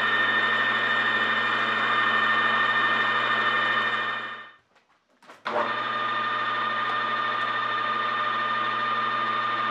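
Metal lathe running with a steady whine while a boring bar cuts the inside of a spinning brass bar. The sound cuts out for about a second near the middle, then resumes at a slightly different pitch.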